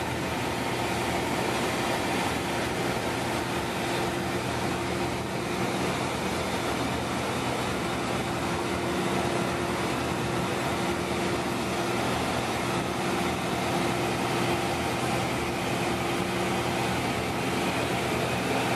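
Car ferry's engines running steadily under way: a constant drone with a steady hum and a wash of noise, unchanging throughout.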